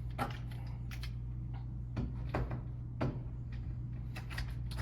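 Scattered light clicks and knocks of a metal door lockset being handled and fitted into the door, over a steady low hum.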